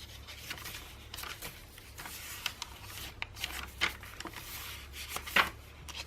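Paper pages and card tags of a handmade junk journal being turned and handled: light rustling with scattered taps, the sharpest about five seconds in, over a low steady hum.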